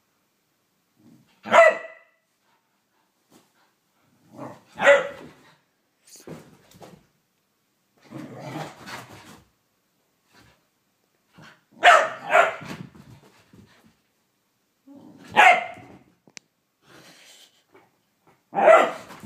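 A whippet barking in play: about six short, loud barks a few seconds apart, two of them close together near the middle, with a lower, rougher sound between them.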